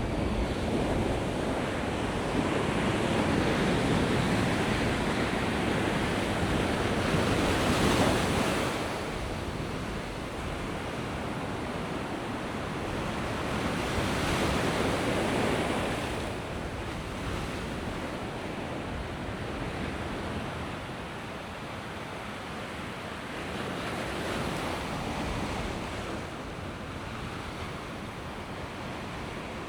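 Mediterranean waves breaking and washing up the shore, the wash swelling and fading several times, loudest about eight seconds in.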